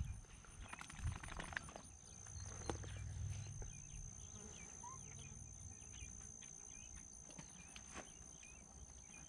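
Quiet field ambience: a steady high-pitched insect drone with scattered short chirps, over low wind and handling rumble on the microphone that is loudest about three seconds in, with a few soft knocks.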